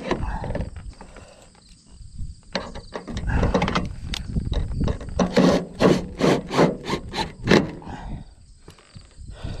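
Short scraping rubs and knocks of metal on a galvanized steel roof ridge cap as a steel weathervane mounting bracket is handled, with a quick run of about eight strokes, roughly three a second, in the middle.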